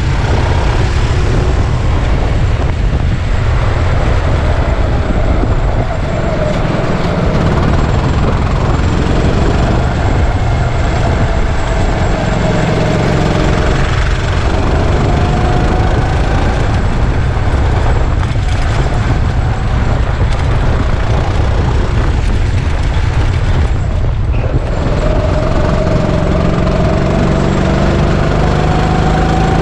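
Go-kart engine running at speed, its pitch rising and falling again and again as it accelerates and lifts through the corners, over a heavy low rumble.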